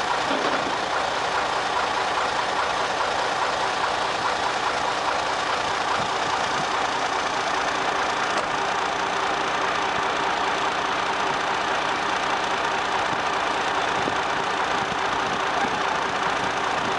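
Fire truck's engine running steadily, an even, unbroken drone.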